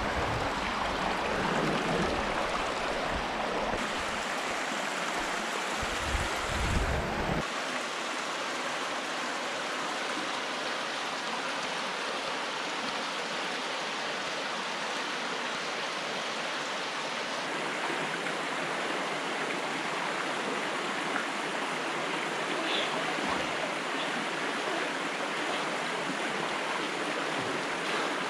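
Steady rush of flowing water. For roughly the first seven seconds, low wind rumble buffets the microphone, then drops away suddenly.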